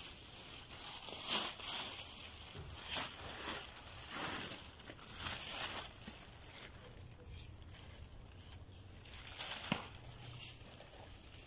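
Black plastic bin bag rustling and crinkling as it is carried and handled, in short rustles. The rustles come thick in the first half, ease off in the middle, and start again after a single sharp click near the end.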